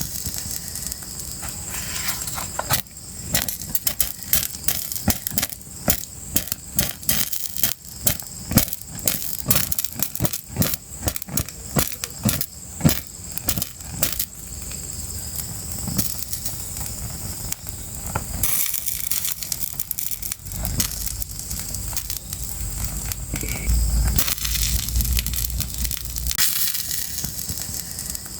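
Fire crackling, with many sharp pops and snaps through the first half. After about 18 seconds the pops thin out into a steadier hiss, with a low rumble underneath for several seconds.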